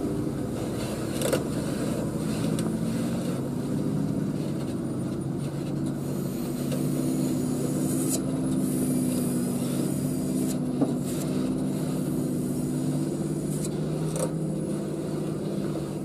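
Heavily loaded dump truck's diesel engine pulling steadily under load up a rising gravel road, a low, even drone, with a few sharp ticks scattered through it.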